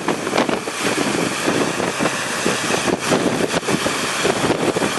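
A car being driven, with its engine running and a steady rush of road noise, broken by frequent irregular knocks and bumps.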